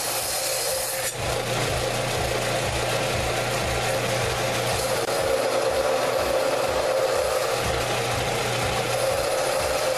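Power tool running steadily against the steel of a saw-blade knife blank, abrading it to clean off scale and tarnish, with light pressure. The tone holds steady under a low, regular throb.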